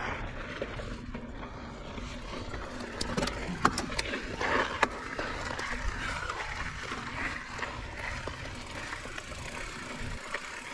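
Mountain bike rolling along a dirt trail: a steady rumble of tyres on dirt and rock, with scattered clicks and rattles from the bike.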